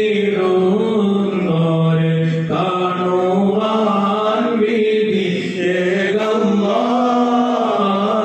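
A man's solo Islamic devotional chant into a handheld microphone: one melodic voice holding long notes that slide from pitch to pitch, with short breaks for breath.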